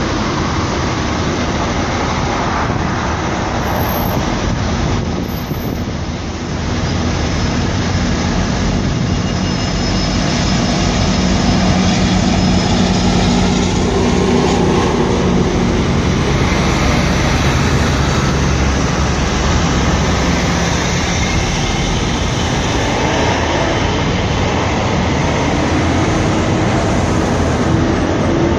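GO Transit commuter train of bilevel coaches rolling past below, cab car leading: a steady, loud rumble of the moving train.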